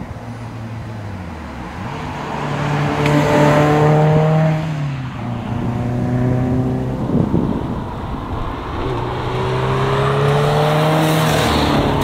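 Subaru WRX rally car's turbocharged flat-four engine pulling hard past at speed. Its pitch climbs and drops back at each gear change, loudest about four seconds in, with a long climb near the end.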